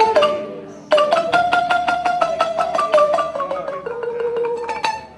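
Music: a held melody stepping from note to note over rapid struck percussion, with a short break about a second in.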